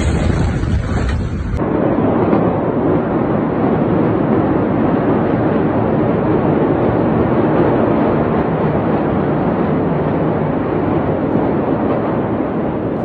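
Loud, steady rumbling noise from the Beirut port explosion, starting abruptly about a second and a half in and holding evenly with no distinct bangs.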